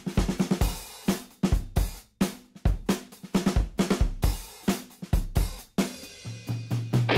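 Background music: a drum kit playing a steady beat of kick, snare and cymbals, with low bass notes coming in about six seconds in.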